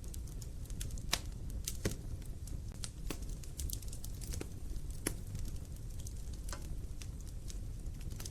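Wood fire burning in a fireplace: a steady low rumble of the flames with irregular sharp crackles and pops from the logs, about ten in all.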